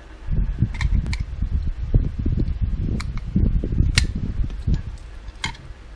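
Close handling noise of a Pro'sKit battery-operated soldering iron's plastic body: irregular low rubbing, with several sharp plastic clicks as its battery end cap is worked off.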